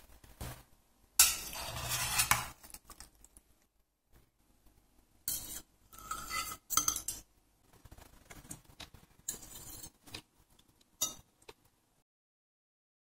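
Metal serving spoon and fork scraping a stainless-steel frying pan and clinking against a plate as pasta with fried eggs is dished up: one longer scrape about a second in, then several short scrapes and clinks.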